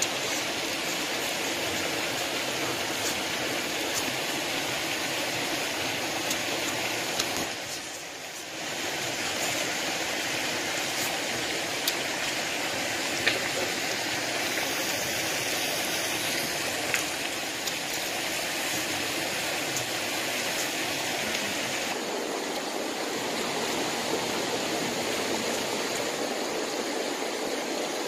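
Steady rushing of a stream flowing over rocks, briefly quieter about eight seconds in, with a few faint clicks.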